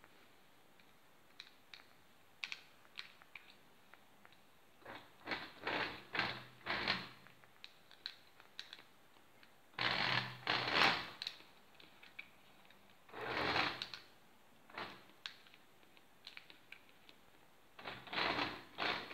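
Battery-operated Presu Wartburg 311 Cabrio toy car's small electric motor and gears whirring in several short bursts of a second or two as it drives. Between the bursts come sharp clicks from the wired remote's switch and steering wheel.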